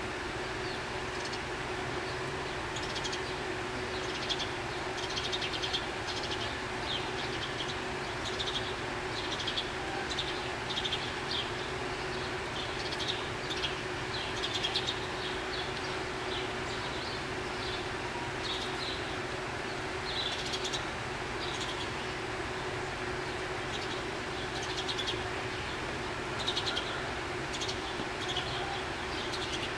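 Exhibit waterfall rushing steadily under a constant low hum, with small birds chirping in short, scattered bursts over it.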